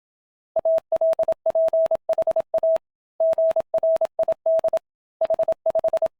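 Morse code beeped out as one steady mid-pitched tone, keyed on and off in short dots and longer dashes with a faint click at each on and off. Two longer pauses split it into three groups, the spacing between letters or words.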